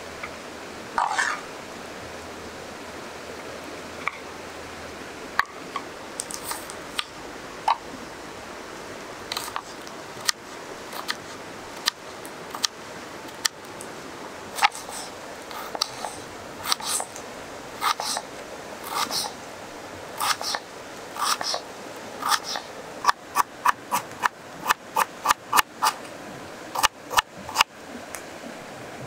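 Kitchen knife cutting on a wooden cutting board: scattered single cuts and knocks at first, then a quick run of chops near the end as an onion is diced. A steady river rush runs underneath.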